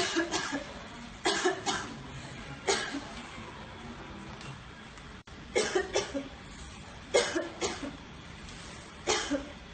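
A woman coughing in repeated short fits, two or three coughs at a time, with pauses of a second or more between them. These are coughs she cannot hold back.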